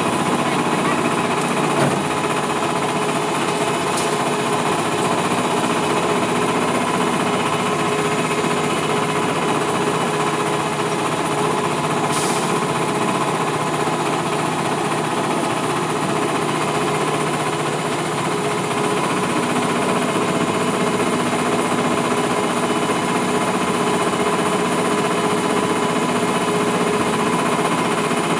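Small boat's motor running steadily at a constant speed, loud and close, an even drone with a few fixed tones.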